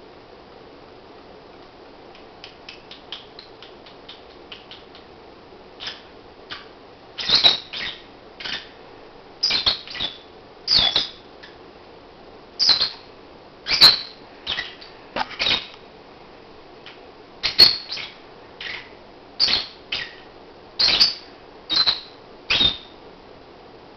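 A black-masked lovebird snoring on its perch: a series of short, high-pitched raspy snores, roughly one a second, faint at first and much louder from about six seconds in.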